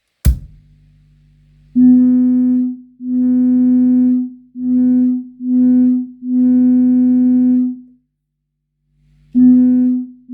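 A steady buzzy test tone from a signal generator played through an amplifier and loudspeakers, switching on and off in about seven bursts of uneven length. A sharp pop comes about a quarter second in, and a low hum sits in the gaps.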